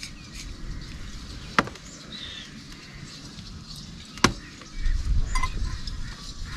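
Bowls and dishes clinking as they are handled and set down on the ground: two sharp clinks stand out, one early and one past the middle, among a few fainter ticks. A low rumble comes in for about a second in the second half.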